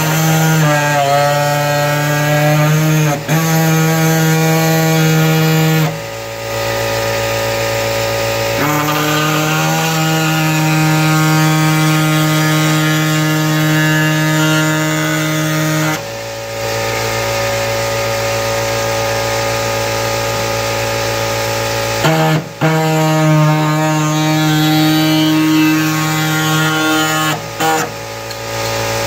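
Handheld power tool cutting the steel wing-mount bracket at its marked trim lines. It runs in three stretches with two short pauses, each starting with a quick rising whine before settling into a steady buzzing drone.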